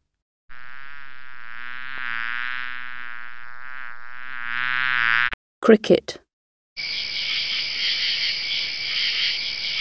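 A bee buzzing steadily for about five seconds, its pitch wavering slightly. After a short pause a cricket chirps in a fast, continuous high-pitched trill.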